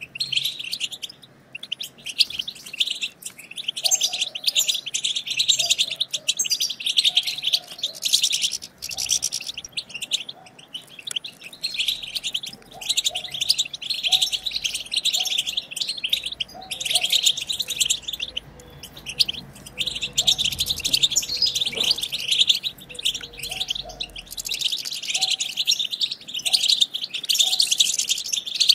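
European goldfinches twittering: rapid, dense chattering calls in long bursts with brief pauses.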